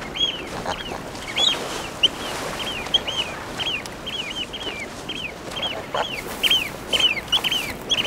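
Otters calling with a run of short, high, squeaky chirps, each rising briefly and then falling. The chirps come about two or three times a second and crowd together and overlap in the second half.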